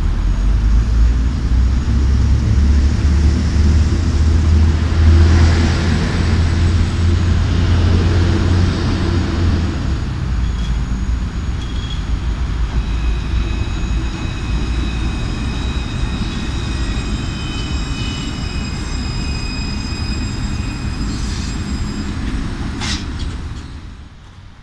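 Alstom Citadis 302 tram running into the stop: a heavy low rumble for the first ten seconds or so, then several thin, steady high-pitched whines as it comes in and slows. There is a sharp click near the end.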